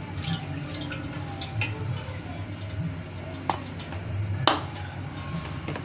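Small kitchen handling sounds at the stove: soft knocks and clicks, with one sharp click about four and a half seconds in, over a low steady hum. The pour of cooking oil into a large aluminium pot ends as the sounds begin.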